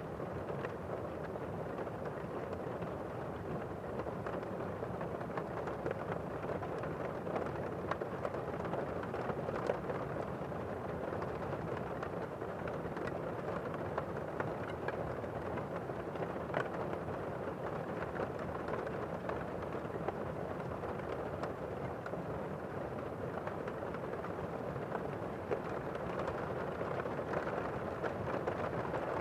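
Steady rain falling, a dull, even hiss with scattered single drops ticking through it.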